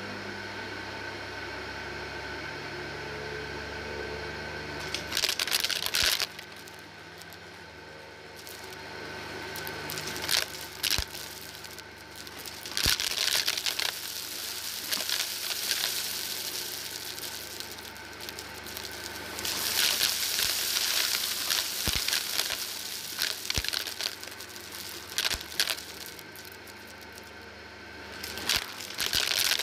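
Shark DuoClean Lift-Away upright vacuum running and sucking up crunchy granules and beads from a mat: a steady motor hum broken by several bursts of crackling, with single sharp ticks of debris hitting the head between them.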